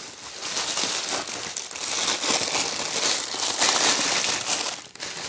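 Packaging crinkling and rustling as a camera lens is unwrapped by hand: a dense run of crackles that swells about two seconds in and dies away near the end.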